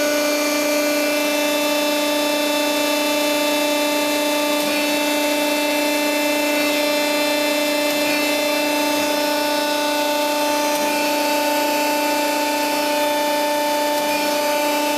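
Alpha 60-ton hydraulic compacting press running, its hydraulic pump giving a steady, even whine that holds the same pitch and level throughout.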